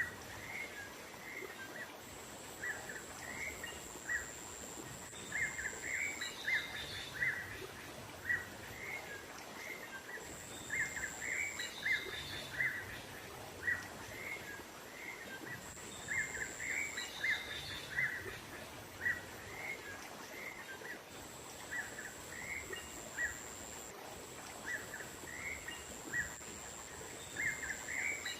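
Small songbird lure call: clusters of short, sharp chirps repeating in a loop over a steady background hiss, with a thin, high steady tone that comes and goes every few seconds.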